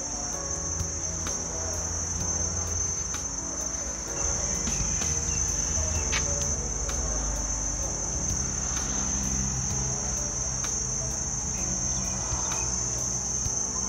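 A chorus of insects, crickets or cicadas, keeps up one steady high-pitched drone throughout.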